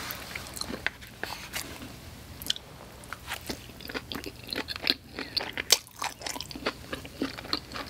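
Close-miked eating sounds: curry pad thai noodles chewed with wet mouth noises and scattered short clicks. The sounds grow busier about halfway through, as a mouthful of noodles is drawn in from the chopsticks.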